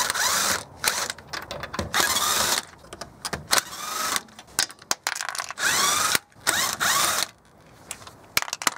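A handheld power tool with a socket spinning loosened wheel nuts off a car's alloy wheel, in about five short bursts with a motor whine that rises and falls, the longest burst near the end.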